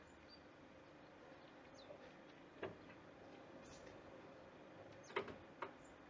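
Small birds at a wooden feeder: three sharp taps, one about two and a half seconds in and two close together near the end, over a few faint, brief high chirps.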